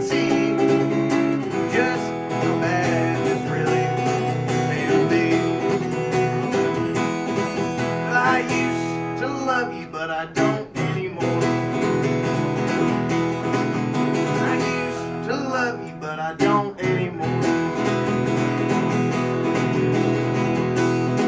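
Acoustic guitar strummed steadily in a live solo country song, with brief breaks in the strumming about ten and sixteen seconds in.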